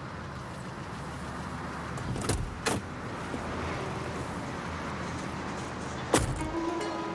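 Car door opened with two sharp clicks about two seconds in, then slammed shut with a loud thump near the end, over steady background noise.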